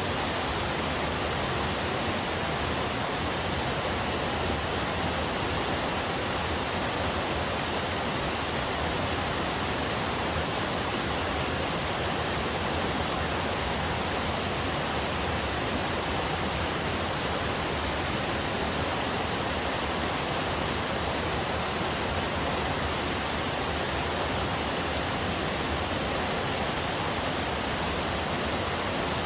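Small waterfall on a forest river splashing and rushing steadily, an even, unchanging wash of water noise.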